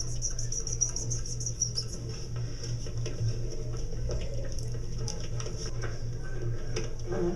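Felt-tip marker squeaking across paper as it strikes names off a list for the first couple of seconds, over a steady low hum. Faint scattered ticks follow.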